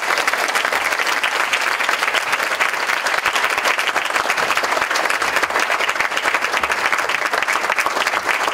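Audience applauding: steady, sustained clapping from a roomful of people, answering a call to give a round of applause to an award recipient.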